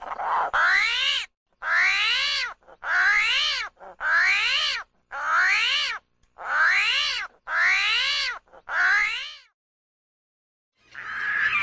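Screaming hairy armadillo squealing: about eight shrill cries, each under a second long, with pitch that rises and then falls, repeated roughly once a second until they stop about nine seconds in.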